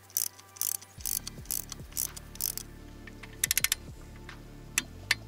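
Ratcheting clicks of a torque wrench worked back and forth in short swings, in quick bursts of clicks, as it runs down the clutch pressure-plate bolts.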